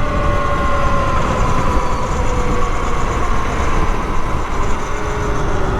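Talaria Sting R electric dirt bike under way: the electric motor's whine, sagging slightly in pitch as the bike eases off, over loud wind rush on the microphone.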